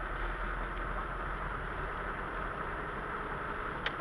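Car driving on a rain-wet road, heard from inside the cabin: a steady hiss of tyres on wet asphalt over a low engine rumble. A single short click near the end.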